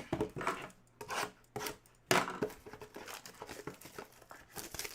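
Plastic wrappers of trading card packs crinkling and tearing as the packs are opened and handled, in irregular rustling bursts that grow busier about two seconds in.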